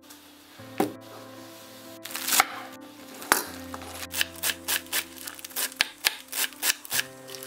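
Kitchen knife chopping fresh spinach on a wooden chopping board: a run of quick, even strikes about three to four a second, starting about four seconds in, after a few separate knocks as the leaves are handled. Soft background music with held chords plays underneath.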